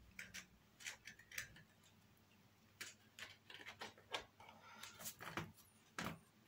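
Faint, irregular light clicks and taps of thin wooden criss-cross braces being worked into the slots of a model truss bridge side.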